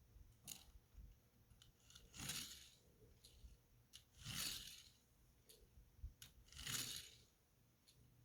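Toy NASCAR Ford Mustang stock car rolled across a surface three times. Each run is a short swish of its wheels, a little over two seconds apart, with a few faint clicks between.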